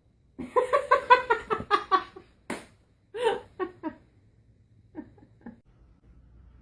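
High-pitched laughter: a quick run of ha-ha-ha pulses, then a few shorter laughs that fade out.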